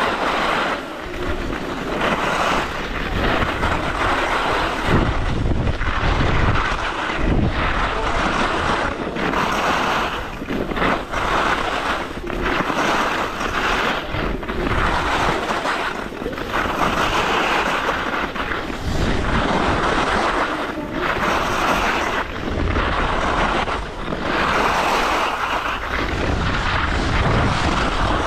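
Skis hissing and scraping over groomed snow on a downhill run, the hiss swelling with each turn about every two to three seconds. Wind buffets the microphone with a low rumble underneath.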